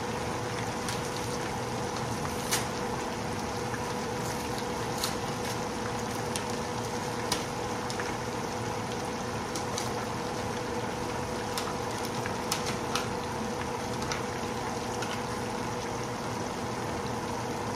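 Breaded pork chops frying in hot oil in a skillet: a steady sizzle with scattered sharp pops and crackles.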